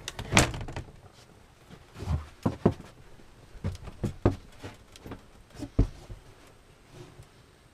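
A string of knocks and thumps as a person climbs into a small homemade wooden camper, hands and feet bumping its painted wood frame, walls and floor. The loudest knock comes about half a second in, with a looser cluster of bumps over the next few seconds.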